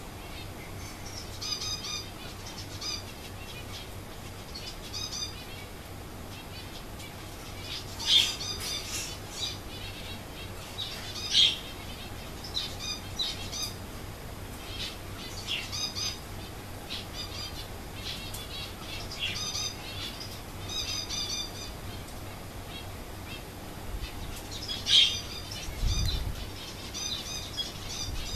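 Zebra finch giving short, high calls every second or two, a few of them louder. There is a low bump from handling near the end.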